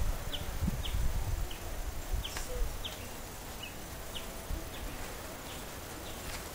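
Outdoor ambience with short high chirps from a small animal, repeating roughly every half second, over a low rumble.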